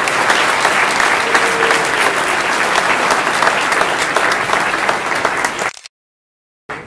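Audience applauding with dense, continuous clapping that fades out abruptly about six seconds in, followed by a moment of silence.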